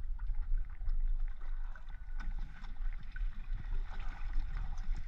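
Wind rumbling on the microphone over water lapping against the hull of a boat lying still offshore, with a few faint knocks.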